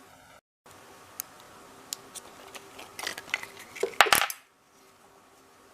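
Small hard objects being handled, clicking and clattering. Scattered clicks build to a cluster of knocks, with the loudest clatter about four seconds in, then it cuts off suddenly.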